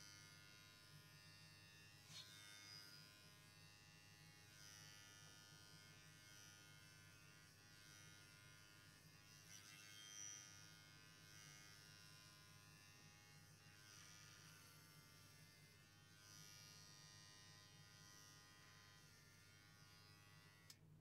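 Electric pet hair clippers running with a faint, steady buzz as they shear through a Persian cat's long white fur.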